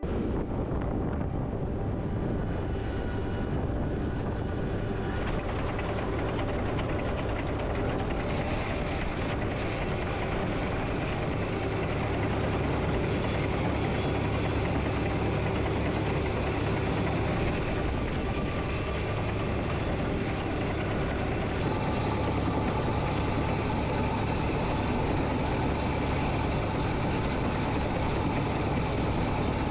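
Kubota combine harvester running steadily as it cuts and threshes adzuki beans: a continuous engine and machinery drone with no breaks.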